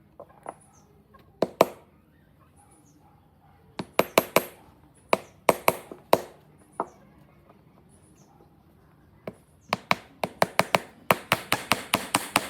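Hammering on wood: sharp knocks in irregular bursts, a pair of blows near the start, a cluster around the middle, and a quick run of about six blows a second near the end.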